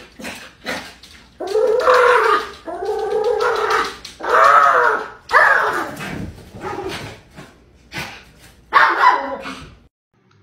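Small dog barking repeatedly, a string of drawn-out, pitched barks that stops abruptly near the end.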